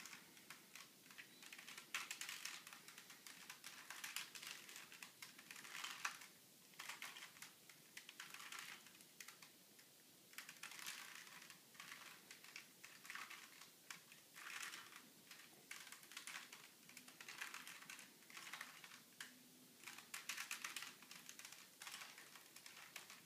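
A plastic Rubik's cube being twisted: its layers click and clack in quick runs of turns, broken by short pauses.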